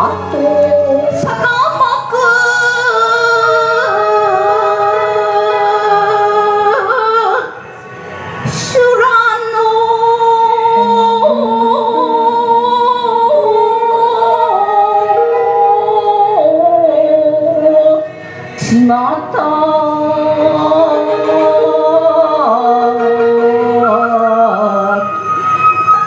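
Background music with singing: long held notes in chords that step from one pitch to the next, broken by two short pauses.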